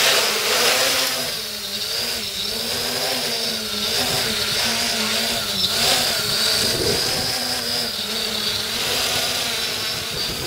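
A V-tail quadcopter's four 2212 1000 kV brushless motors on 8-inch Gemfan props, buzzing as it hovers low. The pitch wavers up and down with constant throttle corrections. Gusting wind buffets the microphone underneath.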